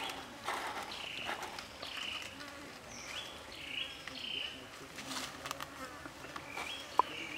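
Insects buzzing in short repeated calls over dry leaves and twigs rustling as they are handled, with a sharp click near the end.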